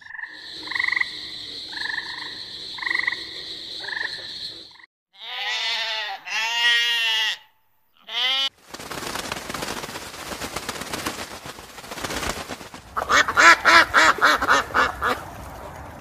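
A rhythmic pulsing call over a steady high tone, then sheep bleating: two long wavering bleats and a short one. After that, ducks quack in a quick run of calls over a noisy background.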